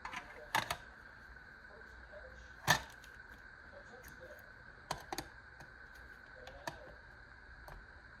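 Hard objects handled and set down on a tabletop: scattered sharp clicks and knocks, the loudest about two and a half seconds in, a few close together around five seconds in.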